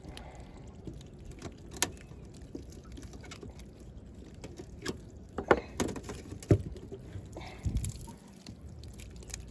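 A killie (minnow) trap being handled and pulled apart by hand: scattered clicks and knocks from the trap's parts, with water dripping and splashing.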